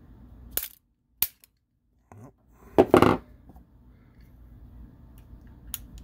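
Hammer rapping on a cheap Disecu four-digit combination padlock: several sharp metal knocks, the loudest a cluster about three seconds in. The impacts jar the locking lever, and the shackle springs open.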